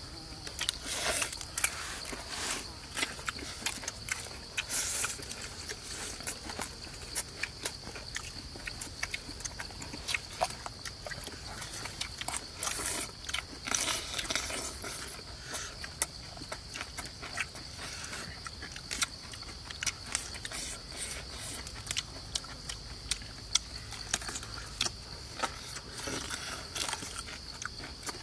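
Close-up eating sounds: crisp bites and chewing of raw cucumber and leafy greens, many sharp irregular crunches and mouth clicks.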